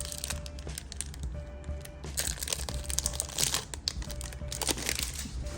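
Foil booster pack of trading cards crinkling and crackling as it is torn open and handled, over background music with a short note repeating about once a second.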